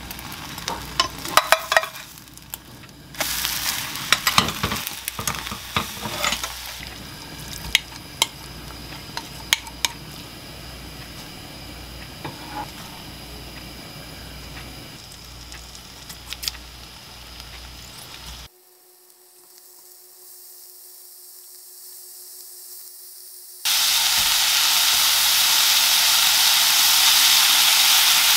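Utensils clicking and scraping against pans over a low sizzle, then marinated bulgogi beef with onion and green onion sizzling loudly as it stir-fries in a frying pan, the loud sizzle starting about four seconds before the end after a brief quieter stretch.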